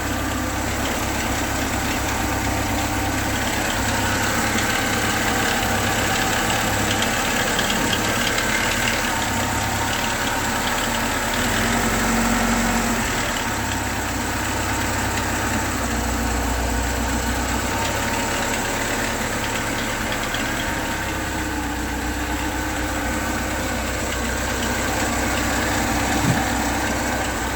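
VAZ Zhiguli engine idling steadily with a knock, which the owner suspects comes from the timing chain. There is one sharper tap near the end.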